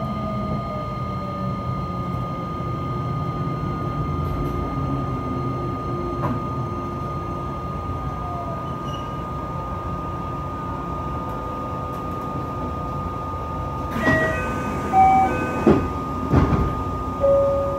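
JR West 227 series electric train at low speed: its falling inverter whine dies away in the first second, and the train then stands with a steady electrical whine and rumble. Near the end comes a short run of chime tones at several pitches.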